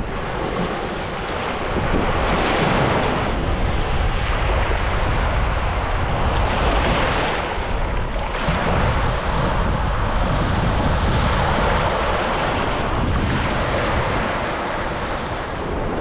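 Black Sea surf breaking on a beach in strong wind, with wind buffeting the microphone in a low rumble. The noise of the waves swells and eases every few seconds, the sea still rough after a storm.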